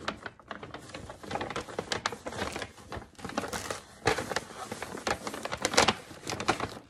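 A bag rustling and crackling as a hoodie order is packed into it: irregular crackles throughout, louder near the end.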